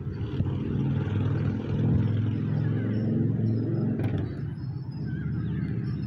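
A car driving by on the road, its engine hum loudest about two seconds in and easing off after about four seconds.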